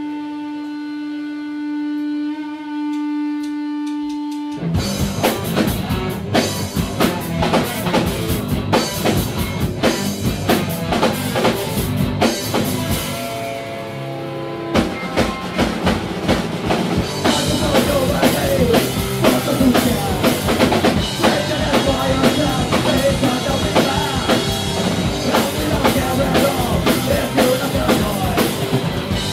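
Hardcore punk band playing live: a single held guitar tone rings for the first few seconds, then drums and guitars come in together about five seconds in. After a brief break a little before halfway, the full band comes back in.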